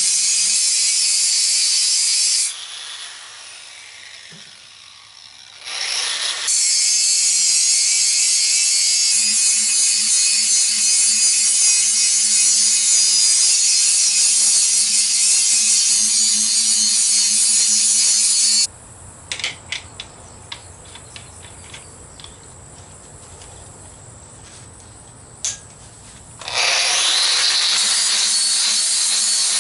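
Angle grinder grinding the steel shell of a propane tank, a loud, steady, hissing grind over the motor's hum. It drops out about two seconds in and comes back a few seconds later, then stops for several seconds, with only a low hum and a few clicks, before starting up again near the end.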